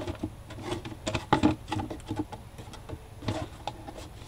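Handling noise from a handmade cardboard recipe box: paper divider cards moved inside it and the box tipped and turned, giving scattered light taps, knocks and rustles.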